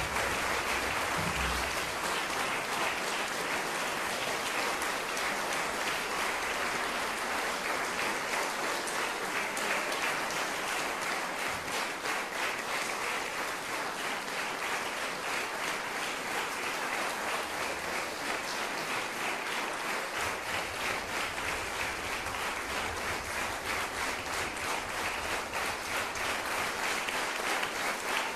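Audience applauding steadily, a dense patter of many hands clapping; the last low bass notes of the music die away in the first second or two.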